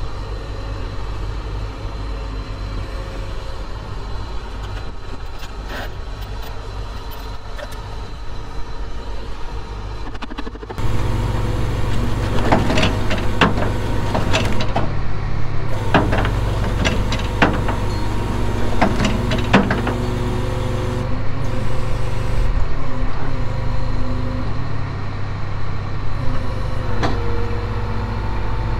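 Rollback tow truck's engine running steadily while the bed is worked. About a third of the way in the engine gets louder, and a series of sharp metal clanks and knocks follows as wheel skates are pushed under the car's tyres on the steel deck.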